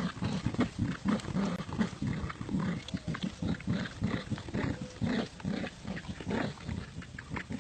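Dogs growling while playing tug-of-war over a toy, a continuous run of rapid, rough low pulses.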